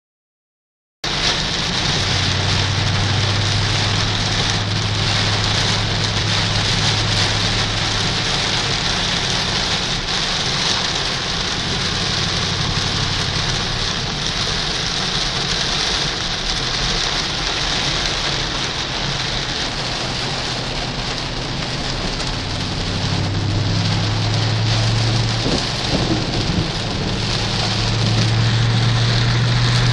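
Heavy rain pounding on a car's roof and windshield, a loud steady hiss heard from inside the cabin while driving, with the low drone of the Mustang Bullitt's V8 coming and going underneath.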